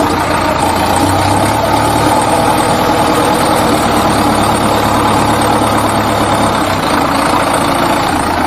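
A steady engine idling sound, running evenly at one speed.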